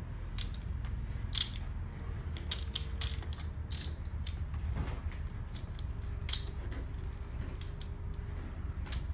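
Irregular sharp clicks and creaks as a handheld tool is pressed and worked against a cardboard box, over a low steady hum.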